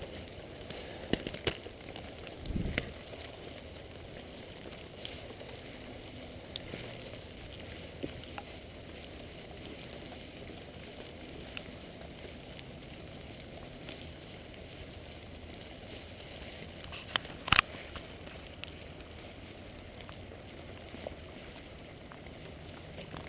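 Light rain, a steady hiss with scattered drops ticking. A low thump comes about two and a half seconds in, and a sharp louder click comes about seventeen seconds in.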